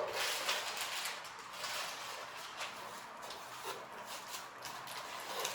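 Faint rustling and light handling noises of the speaker's accessories and packaging being moved about, over a steady hiss.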